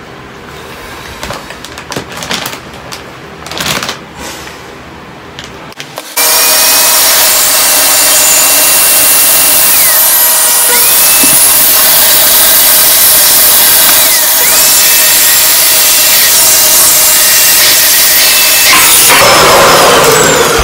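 Canister vacuum cleaner switches on suddenly about six seconds in and runs loudly and steadily, heard sped up, its hose drawing the air out of a plastic vacuum compression bag of clothes. Its whine dips in pitch twice and recovers, and the sound changes near the end as the hose is pulled from the bag's valve. Before it starts, light clicks as the hose nozzle is fitted to the valve.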